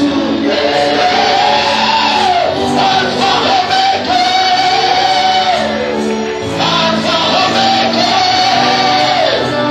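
Gospel worship song: a voice sings long held notes that slide between pitches, over a full band.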